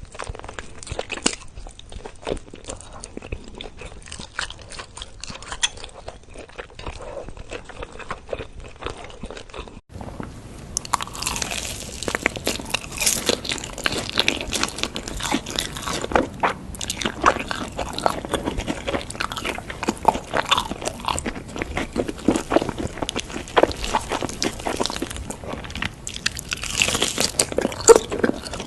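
Close-miked eating: crunchy bites and chewing, a dense run of irregular crackles. About ten seconds in, the sound cuts to another take where the crunching is louder.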